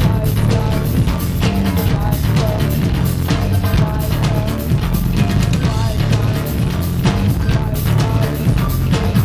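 Live band music: a drum kit keeping a steady beat over a heavy low bass line, with electric guitar.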